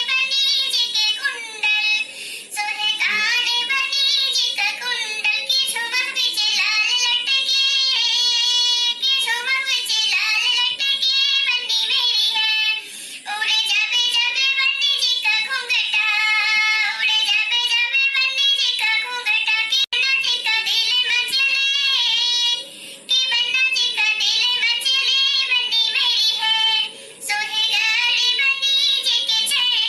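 A high-pitched voice singing a dadra gaari geet, a teasing folk song of the kind sung at weddings, line after line with only short breaths between phrases.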